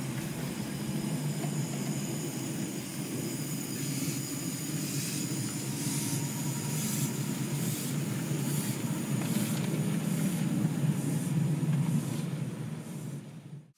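Ride-on miniature Britannia-class steam locomotive and its passenger coaches rolling past close by. There is a steady rumble of wheels on the rails and a regular clicking of about one and a half clicks a second in the middle. The train grows louder near the end, then falls away.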